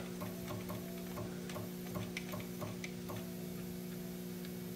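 Steady electrical hum from the powered-up CNC lathe, with a run of light mechanical ticks, about three or four a second, as the lathe chuck is turned by hand; the ticking stops about three seconds in and the hum carries on.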